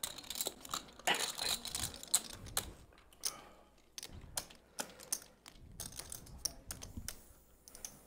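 Clay poker chips being shuffled by hand on the felt table: a run of light, irregular clicks as the chips knock together.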